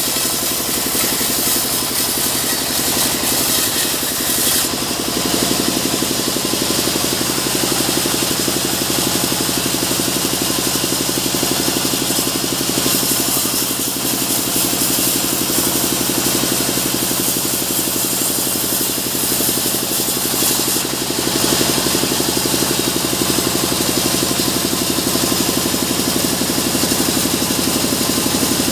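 Sawmill band saw running steadily and cutting through a mahogany log, the steady drone of the machinery under the hiss of the blade in the wood, which grows brighter about five seconds in and again in the middle stretch.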